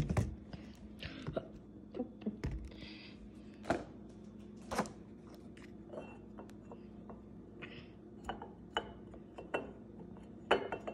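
Scattered clicks and knocks of bottles and a box being handled on a stone countertop, with a hand working the cap of a glass Frappuccino bottle, over a faint steady hum.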